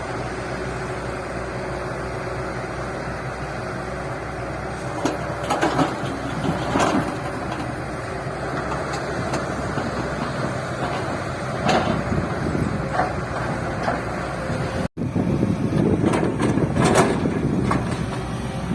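Tata Hitachi excavator's diesel engine running steadily, with scattered clanks and knocks during tipper loading. A brief cut-out about fifteen seconds in, then the engine noise returns, a little rougher.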